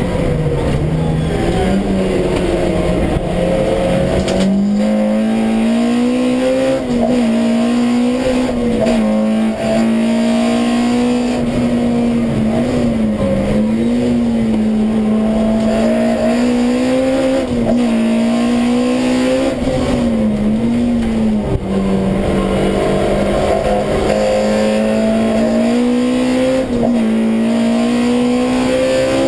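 Honda CRX's B18 four-cylinder engine on individual throttle bodies, heard from inside the stripped cabin, revving up and down through the gears at track pace. The engine note climbs, drops sharply at each gear change, and sags under braking, several times over.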